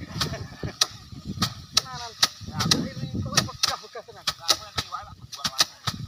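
Sheaves of rice stalks beaten by hand against wooden threshing racks by several workers, a run of sharp, irregular whacks about two to three a second. Short pitched calls come in between the whacks.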